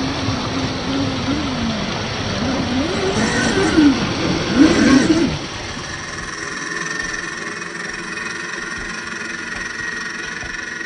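Electric drivetrain of an RC crawler truck, a brushed 550-size motor and its gears, whining. The pitch rises and falls with the throttle for the first five seconds or so. After that it turns to a quieter, steadier high whine.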